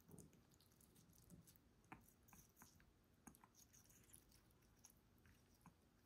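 Faint, irregular soft clicks and wet squishes of an African grey parrot biting and chewing watermelon flesh.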